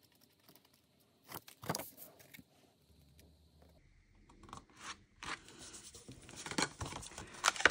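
Cardstock being handled and pressed together by hand: a few short, crisp paper scrapes and crackles, growing into denser rustling near the end.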